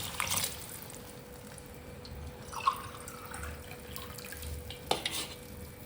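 Hot water poured from a tumbler into a pot of soaked rice and corn, faint trickling and dripping, with a few short clicks of metal against metal.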